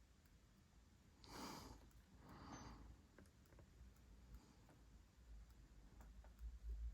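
Near silence with a few faint, scattered clicks from a Kemper Power Kabinet's IcePower 300AS1 amplifier module: the oscillating clicking the board makes while switched off, a fault its owner is trying to trace. Two short breaths or sniffs come close to the microphone, about a second in and again a second later.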